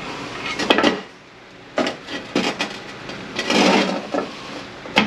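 Metal parts of an 8L90 automatic transmission being handled during teardown: several separate clinks and knocks, with a longer scraping rub about three and a half seconds in.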